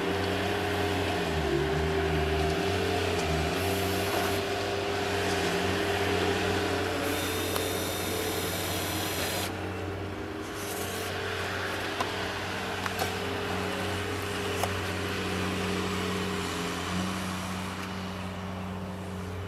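Cordless drill driving self-tapping screws through plastic clips into foam pool coping, in short runs with a longer whining run from about seven to nine and a half seconds in, and a few sharp clicks later. A steady low motor hum runs underneath.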